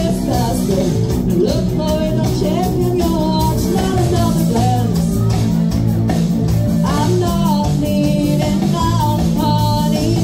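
Live rock band playing: a female lead vocal over electric guitars, bass and a drum kit, through a PA.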